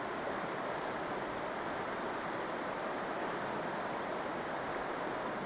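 Steady, even rush of river water, unbroken and unchanging.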